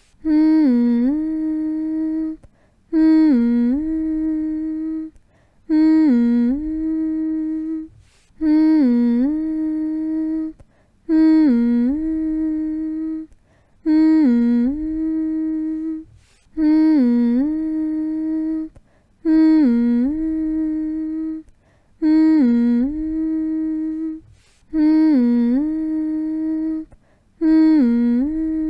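A person humming the same short phrase over and over, about once every two and a half to three seconds. Each phrase dips briefly in pitch, then holds a steady note before breaking off.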